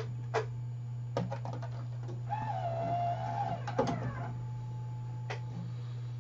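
Scattered plastic clicks and rattles of an install CD and its case being handled, with a short wavering tone in the middle, over a steady low hum.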